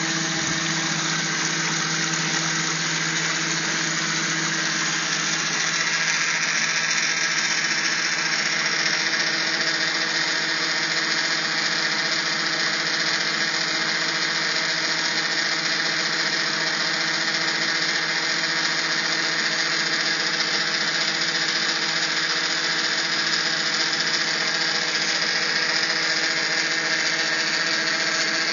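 A homemade machine running steadily: an electric motor turns a shaft that spins rollers of stacked discs inside a plastic-wrapped tub, with water spraying and splashing over them. A constant motor hum under a steady hiss, with no break.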